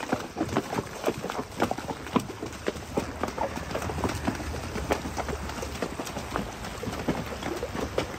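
Horses' hooves wading through a shallow, rocky creek: an irregular run of clops on the stones and splashes of water.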